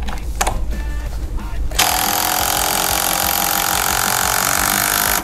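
Makita cordless multi-mode driver in impact mode at its third, top speed. The motor runs, and about two seconds in the impact mechanism starts hammering loudly, then stops abruptly.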